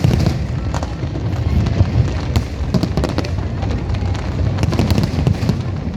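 Fireworks going off continuously: many sharp cracks and pops in quick, irregular succession over a steady low rumble of booms.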